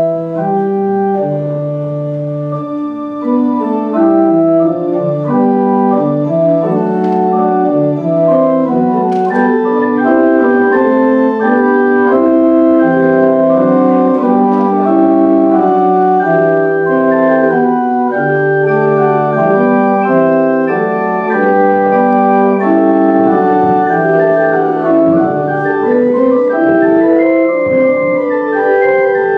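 Church organ playing a postlude of held, steady chords that change every second or so.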